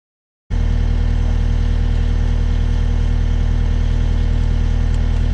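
Heavy-equipment diesel engine running steadily at a low idle, with a fast, even pulse. It cuts in abruptly about half a second in, after silence.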